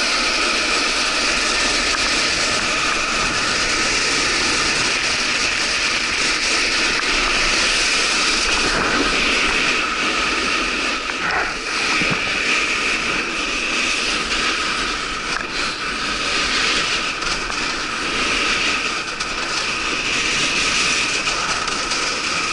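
Steady rushing, scraping noise of sliding at speed over icy, slushy spring snow while snowkiting, with wind on the microphone.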